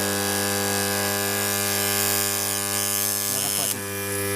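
Microwave oven transformer, rewound with a few turns of thick wire for very high current, humming steadily under heavy load, with a hiss over the hum. The current is heating the secondary wire toward melting.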